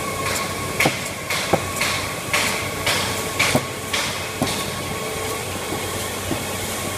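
Envelope window-patching machine running: a steady mechanical hum with a series of sharp clacks roughly every half second for the first four seconds or so, after which only the hum remains.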